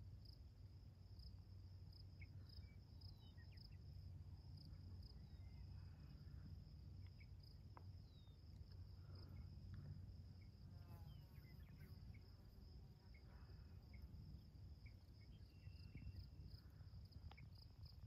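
Faint, steady chirping of insects in a field, an even pulsing trill that runs on without a break, over a low rumble, with a few scattered bird chirps.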